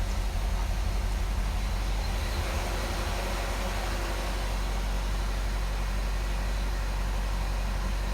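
Saab 9-3 engine running at a high idle just after a cold start, a steady low rumble, a little louder in the first couple of seconds. It has a slight rocking roughness that feels almost like a misfire, which the owner doubts is one, and that smooths out within a few seconds of startup.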